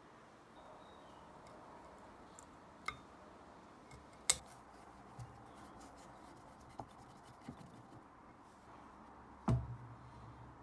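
Hand disassembly of a metal tool: a screwdriver grinding and scraping in screw heads, with scattered sharp metal clicks and taps, the loudest about four seconds in, and a heavier knock near the end.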